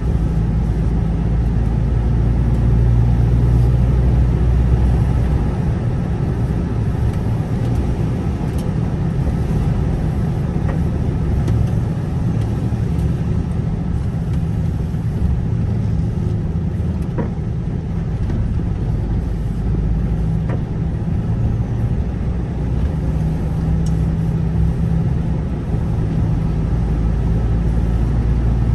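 Road vehicle on the move: a continuous low rumble of engine and tyres, with the engine note strengthening and easing a little along the way.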